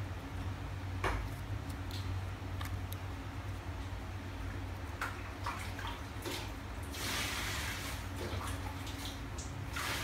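Corrugated cardboard model handled in the hands: light clicks and rustles of cardboard, with a longer rubbing scrape about seven seconds in, over a steady low hum.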